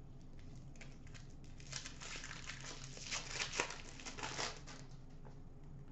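Foil wrapper of an O-Pee-Chee Platinum hockey card pack being torn open and crinkled: a run of quick rustling crinkles through the middle, busiest just past halfway.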